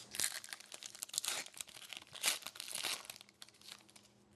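Plastic-foil wrapper of a 2010-11 Artifacts hockey card pack crinkling and tearing as the pack is opened: a run of irregular sharp crackles that dies out about three and a half seconds in.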